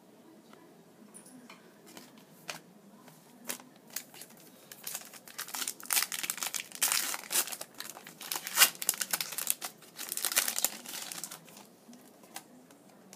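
Plastic wrapper of a trading-card pack being torn open and crinkled, with a few light handling clicks before it. The crinkling starts about five seconds in, is loudest in the middle, and stops shortly before the end.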